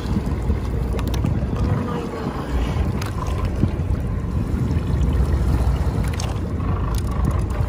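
Sportfishing boat underway: a steady low rumble of engine and rushing water and wind, with a few light clicks or knocks now and then.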